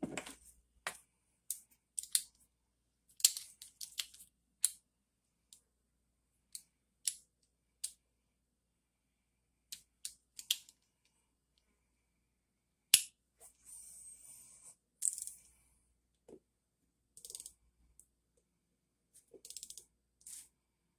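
Scattered sharp clicks and clinks of small metal hand tools and bolts being handled on a workbench, with short runs of socket-ratchet clicking near the end.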